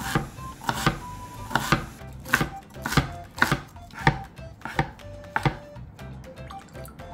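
Kitchen knife chopping and mincing vegetables on a cutting board, about nine sharp knocks roughly two-thirds of a second apart that stop near the end.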